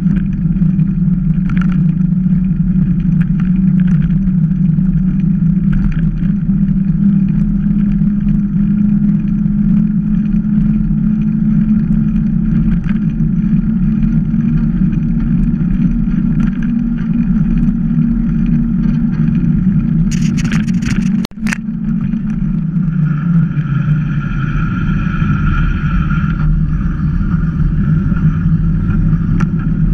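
Steady wind rumble and tyre noise on a bike-mounted camera as a mountain bike rolls along an asphalt lane. About two-thirds of the way through there is a short, sharp noisy burst and a brief dropout in the sound.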